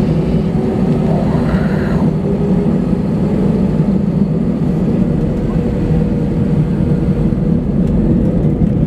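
Jet airliner's engines heard from inside the cabin while taxiing: a steady low rumble with an even hum, not rising in pitch.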